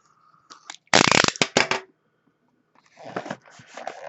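Crinkling and rustling of trading-card packaging being handled as a box is opened and its packs pulled out: a loud burst of crackling about a second in, then softer rustling near the end.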